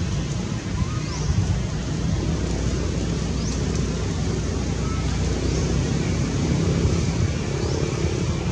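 Wind buffeting the microphone, with a low rumble and a steady hiss of open-air background. A short, high, rising chirp repeats about every two seconds.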